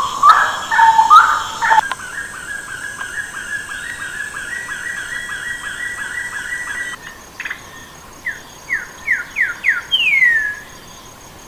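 Bird calls in three abrupt cuts. First comes short warbling calls. Then a fast, even run of repeated short notes for about five seconds. Last comes a quickening series of downward-sliding whistles, ending in a longer falling whistle.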